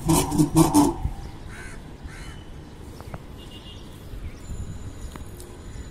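Crows cawing: a quick run of about four loud caws in the first second, then a few fainter calls.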